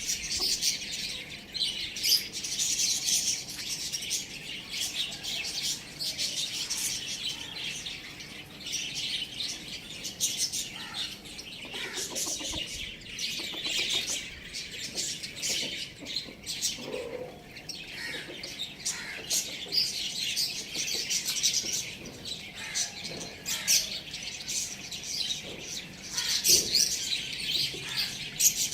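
A flock of small birds chirping and chattering continuously in dense, high-pitched overlapping calls, with bursts of wing flutter.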